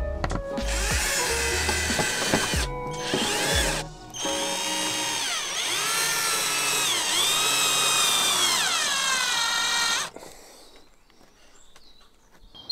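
Cordless drill-driver driving screws into wooden ceiling boards, in two runs. Its motor whine sags and recovers several times as the screws bite, then stops about ten seconds in.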